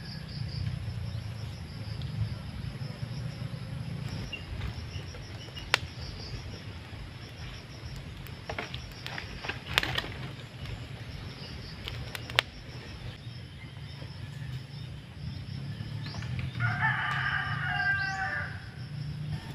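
A rooster crows once, for about two seconds, near the end, over a steady high buzz of insects. Earlier there are a few sharp snaps, like wood cracking in a small open fire.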